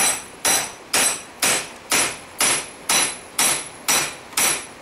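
Hand hammer striking a hot steel railroad spike clamped in a vise, steady blows about two a second, each with a short high metallic ring. The smith is forging the spike's end into a bull's head, drawing the top down toward the front and working the horns out.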